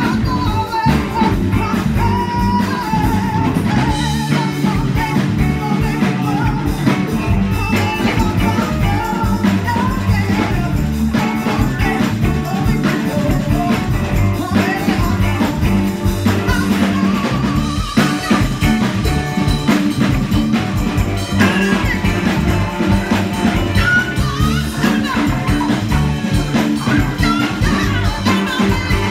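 Live band playing amplified through a PA: drum kit, bass, electric guitar and keyboard, with a horn section of saxophone, trumpet and trombone and a woman singing.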